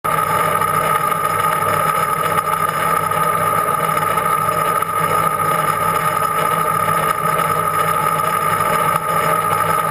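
A machine motor running steadily with a high-pitched whine over a lower hum, stopping abruptly at the end.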